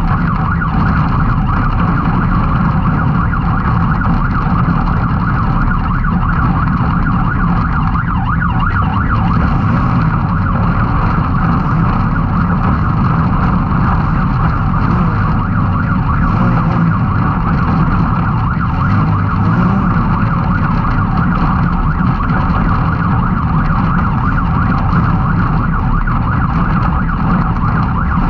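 Can-Am Maverick X3 side-by-side's turbocharged three-cylinder engine running hard at steady high revs under racing load. The sound is loud and continuous.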